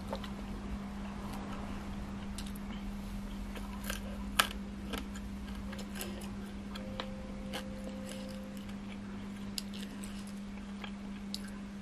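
Close-miked eating: quiet chewing with scattered small clicks and smacks from someone eating with her fingers, the sharpest click about four and a half seconds in, over a steady low hum.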